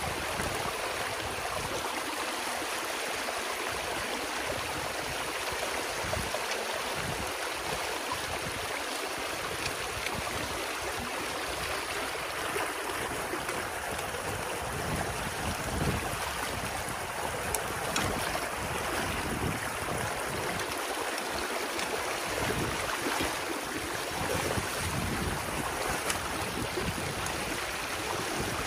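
Water rushing steadily through a breach in a beaver dam, pouring over packed sticks and mud, with a few small splashes and knocks along the way.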